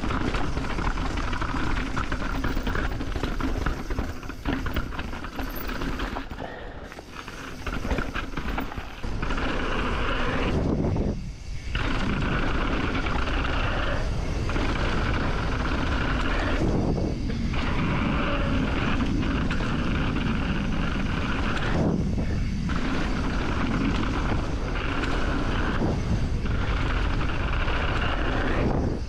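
Mountain bike running fast down a dirt trail, heard through a GoPro: a steady rumble of tyres and rattling bike with wind on the microphone. The noise dips briefly every few seconds.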